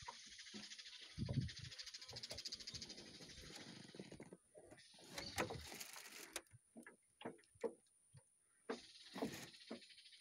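Faint, irregular knocks and slaps of small waves lapping against a small aluminium boat's hull, with a soft hiss during the first few seconds and again near the end.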